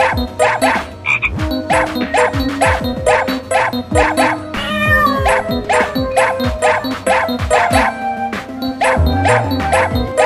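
Electronic background music with a fast, even beat of about four short percussive notes a second over deep falling bass thumps.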